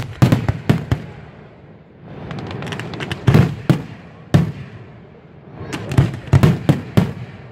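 Aerial fireworks shells bursting in three volleys of sharp bangs: one at the start, one about three seconds in, and one about six seconds in. A rushing hiss builds up between the volleys.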